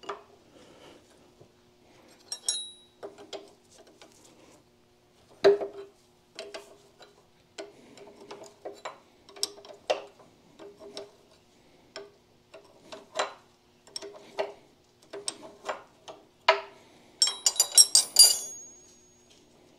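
Steel wrenches working a nut on the shift rail assembly of a 1927 John Deere D transmission: irregular light metal clicks and taps, roughly one or two a second, over a faint steady hum. Near the end comes a quick cluster of ringing metal clinks as the tools are handled.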